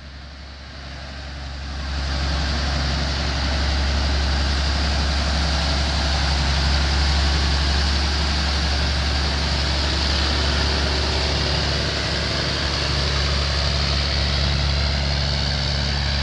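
Engine of a vintage Mack truck tractor running as it drives slowly by. It gets louder about two seconds in and then holds steady.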